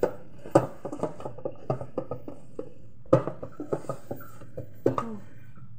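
A hand mixing and kneading sticky dimsum dough in a metal pot, with irregular slaps and knocks of hand and dough against the pot, the loudest about half a second, three seconds and five seconds in.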